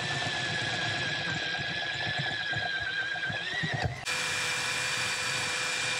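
Power drill running steadily as it bores through a 3D-printed template into an aluminium case, its whine wavering slightly and rising just before an abrupt break about four seconds in. Drilling then carries on at a steadier, higher pitch.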